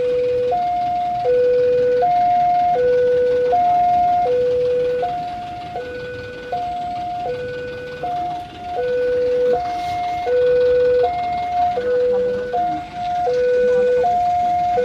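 Two-tone electronic warning alarm, the kind used at a railway level crossing. It switches steadily between a higher and a lower tone about every three-quarters of a second, over a steady hiss.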